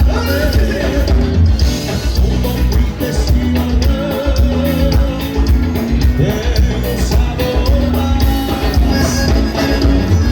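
Live gaúcho dance band playing, with a steady beat and a voice singing over it.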